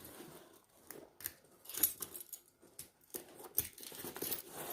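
Light metallic clicks and rattles of a padlock being handled and set down, a scatter of short irregular ticks and knocks.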